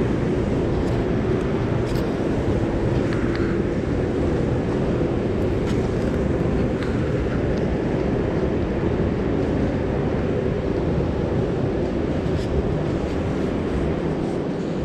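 A steady low rumble with a faint hum in it, and a few light clicks or taps.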